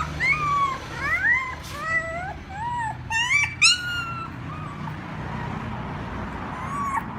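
Young puppies crying and whining for their mother: a string of high squealing cries that rise and fall in pitch, some overlapping, over the first four seconds or so, then a lull with one short cry near the end.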